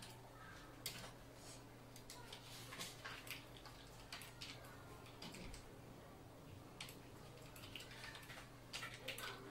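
Faint, scattered clicks and light scrapes of a small circuit board being handled and slid on the base of a microscope stand, over a steady low hum.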